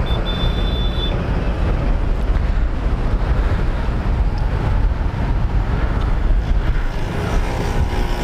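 Strong sea wind buffeting the microphone in a steady low rumble, with traffic passing on the bridge road. A brief high, thin tone sounds in the first second.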